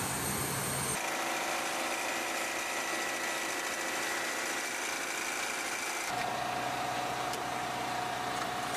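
Steady engine noise on an aircraft flight line, from running jet engines or ground-support equipment, with a few steady high tones over a rushing bed. The sound changes abruptly about a second in and again about six seconds in.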